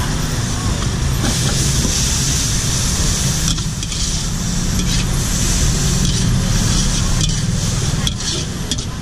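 Pad thai noodles and bean sprouts sizzling in a hot wok while a metal ladle stirs and tosses them; the sizzle swells about a second in and briefly drops away near the middle. Under it runs a steady low rumble.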